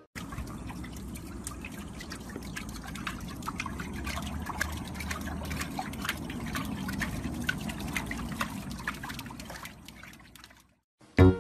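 Small water splashes and drips as a chihuahua paddles its legs in a shallow plastic paddling pool: a steady wash of water with many quick splashy ticks, fading out near the end.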